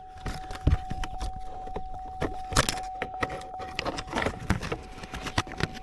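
Plastic dash trim and a rubber boot clicking, knocking and rustling as they are pushed and fitted around a new ignition switch, over a steady electronic warning tone from the truck with the key left in the ignition. The tone breaks off briefly about four seconds in.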